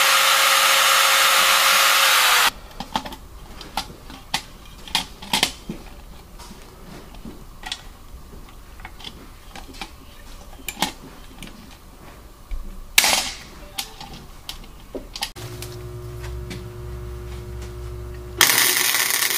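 A drill press bores through the sheet-metal lid of a tin lunch box for about two and a half seconds, its motor tone dropping as it stops. Next come scattered sharp clicks from a hand pop-rivet tool setting rivets, and one short loud burst midway. A low steady hum then starts, and near the end a MIG welder arc crackles for about a second.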